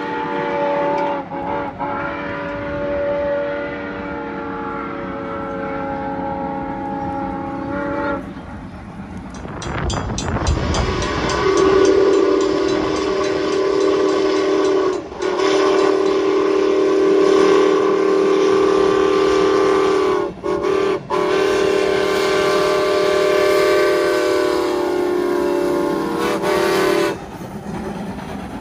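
Norfolk & Western 475's steam whistle blown in long chime blasts. The first runs about eight seconds with two quick breaks near the start. A deep rush of noise comes between the blasts. The second long blast lasts about fifteen seconds, broken briefly three times.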